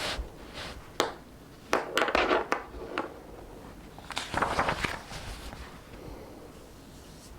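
Paper rustling and light clicks as pages of a book are turned and handled, in two main bursts, around two seconds in and again around four and a half seconds in.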